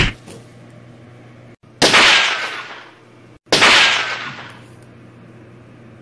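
Cartoon-style bang sound effects: a short crack, then two loud whooshing bangs about a second and a half apart, each dying away over about a second.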